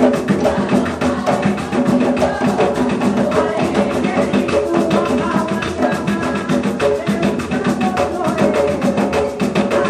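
Live Puerto Rican bomba music: a row of barril drums played by hand in a steady, dense rhythm, with voices singing over it.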